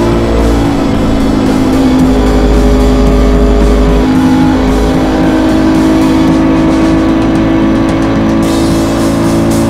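KTM Duke 200's single-cylinder four-stroke engine running through an SC Project SC1-R aftermarket exhaust while riding, holding a fairly steady note that shifts about four seconds in.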